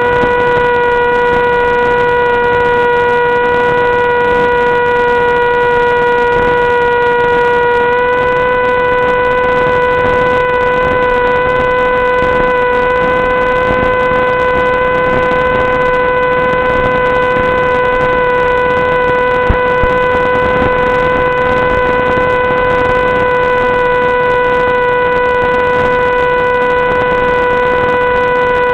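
Electric motor and propeller of an FPV wing running at a steady cruise throttle: a constant whine with a hiss under it, the pitch stepping up slightly about eight seconds in.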